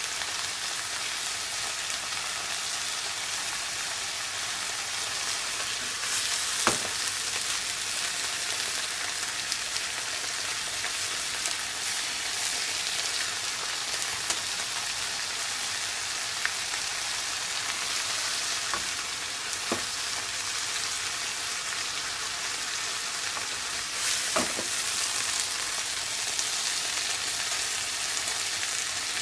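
Napa cabbage stir-frying in a hot pan, sizzling steadily while it is stirred, with a few sharp knocks.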